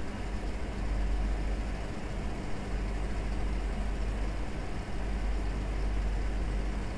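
Steady low rumble and hiss of commercial-kitchen background noise, the kind made by a gas burner and extraction running, with no distinct sizzle from the ghee melting in the pan.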